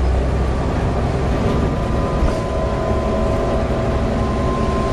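Volvo B7TL bus running with a steady low rumble and a high, steady whine over it; a second, lower whining tone joins about halfway through. This is the strange whining engine noise, or the cooling fan, that the bus is known for.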